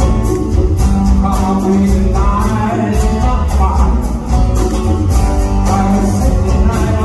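Live band music: a man singing over a strummed acoustic guitar, with bass and a steady ticking percussion beat.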